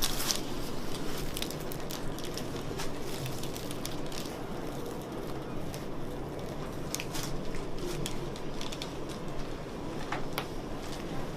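Scattered short clicks and cracks from joints popping during a chiropractic adjustment, over a steady low room hum. The sharpest crack comes near the end.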